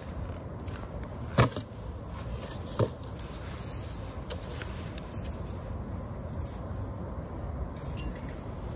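Cardboard burning in a stainless steel double-wall biomass camping stove, the flames making a steady low rumble. Two sharp knocks, about a second and a half apart, come as more cardboard is fed in past the stove's metal pot supports.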